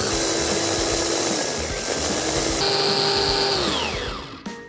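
Cornell electric mini chopper running as it grinds flax seed into meal, then switched off near the end, its motor whine falling in pitch as the blade spins down.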